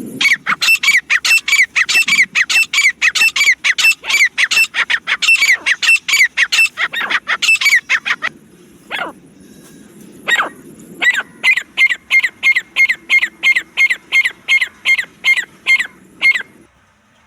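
Francolin calling: a fast run of sharp, downslurred notes, about six a second, for some eight seconds. Then a pause with a few single notes, and a second, steadier run of about four notes a second that stops near the end.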